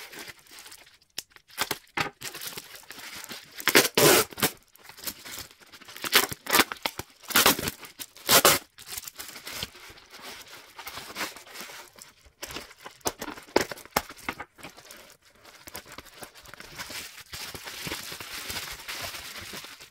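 Bubble wrap being pulled apart and unwrapped by hand, the plastic tearing and crinkling in irregular bursts. The loudest rips come about four seconds in and again six to eight seconds in, with steadier crinkling near the end.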